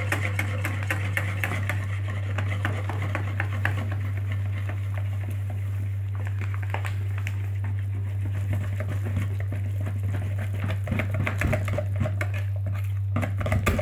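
Wire balloon whisk rapidly clicking and scraping against the bowl as flour is beaten into yeast water, over a steady low hum.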